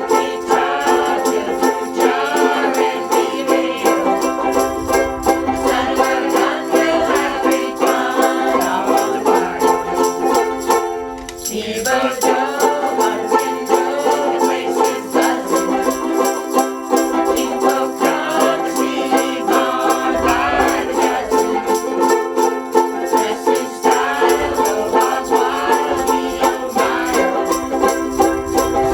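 Group of ukuleles strumming a song together in a steady rhythm, with voices singing along. The music dips briefly about eleven seconds in.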